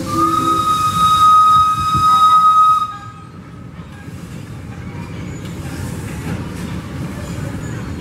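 Wood-fired steam locomotive's whistle blowing one steady high note for nearly three seconds, cutting off sharply. After that, the quieter low rumble of the locomotive and its cars rolling slowly.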